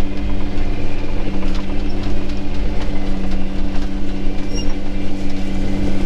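Engine of a farm spraying rig running under load, heard from inside its cab as it drives over a rough paddock: a steady two-note drone over a heavy rumble, with small knocks and rattles scattered through it.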